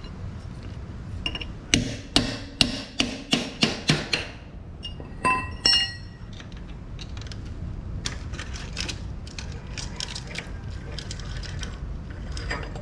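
Metal clanking from hand tools on drum brake parts: a run of about eight sharp strikes, roughly three a second, starting about two seconds in. A couple of ringing metallic clinks follow, then lighter scattered clicks and taps.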